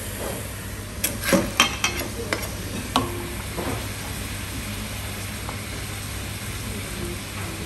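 Metal ladle and wooden spoon stirring broth in a wooden tub, with a cluster of sharp knocks and clinks between about one and three and a half seconds in, over a steady hiss of the fish broth boiling on hot stones.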